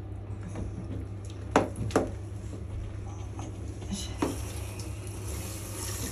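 Water from a handheld shower running into a bathtub while a dog is rinsed, with three sharp knocks: two close together about a second and a half in, one a little after four seconds.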